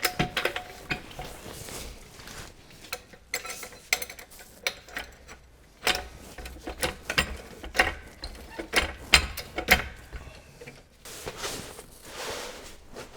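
Irregular sharp metallic clicks and clanks of car-repair work with a floor jack and hand tools, some of them ratchet-like.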